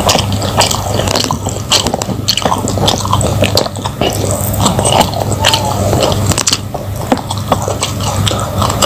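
Close-miked chewing of fried fish, rice and raw vegetables, with many sharp crunches and wet mouth clicks following one another without a break.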